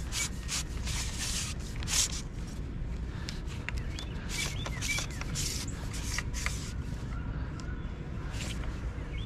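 Outdoor ambience: a steady low rumble, with short clicks and rustles of handling scattered throughout. A small bird chirps briefly a few times near the middle.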